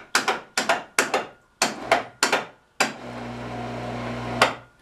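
Winch lowering the motorcycle: a quick series of sharp clicks, about three a second, then a steady motor hum for about a second and a half that ends with a click.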